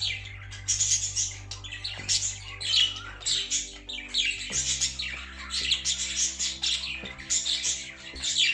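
Budgerigar squawking and chattering in loud, rapid calls, several a second, over background music with sustained low notes.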